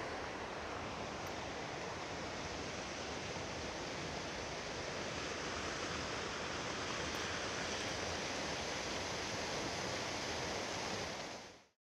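Small mountain stream rushing over rocks and fallen logs: a steady, even water noise that fades out just before the end.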